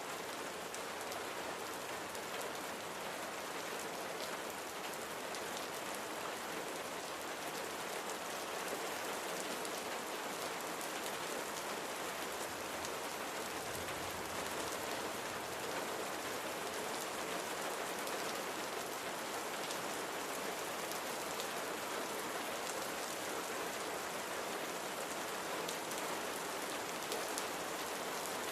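Steady rain falling on a surface, an even hiss with many small drop ticks through it.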